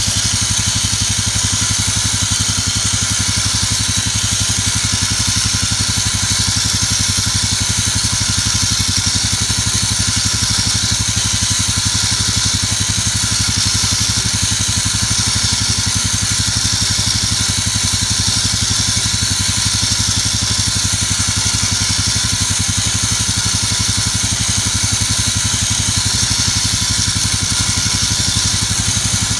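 A motor running steadily and without a break, with an even engine-like hum.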